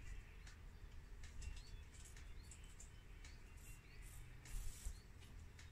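Faint clicks and soft rustling of metal knitting needles working yarn as stitches are knitted, with a few faint bird chirps in the background.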